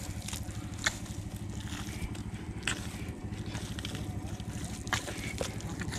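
Hands digging and pulling at thick wet mud, with a few sharp squelches about a second, three seconds and five seconds in, over a steady low engine drone.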